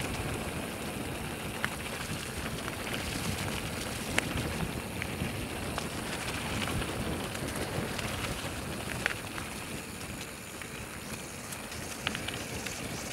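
Mountain bike tyres rolling fast over a dirt and gravel trail: a steady crunching rush, with a few sharp ticks and rattles from the bike over bumps.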